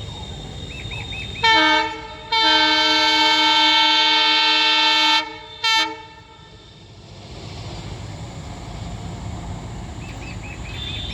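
Indian Railways electric freight locomotive's horn sounding three times: a short blast, a long blast of about three seconds, then another short blast, over the steady rumble of the running train.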